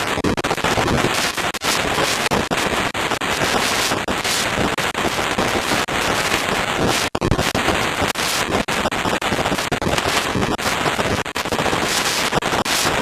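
Heavy downpour: a loud, dense hiss of rain with constant rapid crackling. It cuts out for an instant about seven seconds in.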